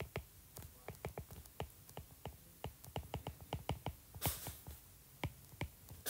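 A stylus tip tapping and scratching on an iPad's glass screen during handwriting: an irregular run of faint, sharp clicks, a few a second.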